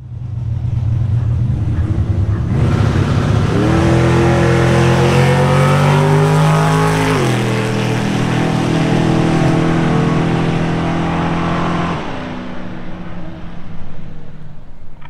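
Drag-racing vehicle at full throttle down the strip, the engine note climbing steadily. About seven seconds in the pitch drops suddenly at a gear shift, then climbs again. The engine falls away about twelve seconds in.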